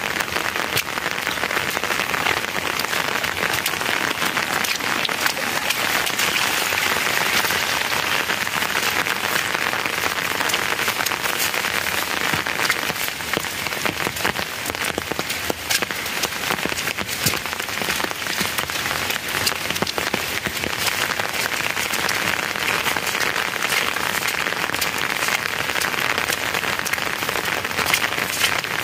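Steady rain falling on a surface: a dense scatter of small sharp ticks over an even hiss, with no let-up.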